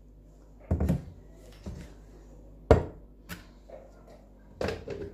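A few knocks and clunks of a plastic blender jar being handled and set back onto its base on a stone countertop. The sharpest, loudest knock comes a little past halfway, with two more clunks near the end.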